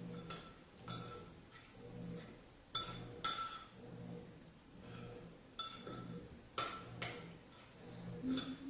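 Spoon clinking and scraping against a bowl of black bean soup and rice as it is scooped, with about eight sharp ringing clinks spread through. Soft chewing swells and fades about once a second underneath.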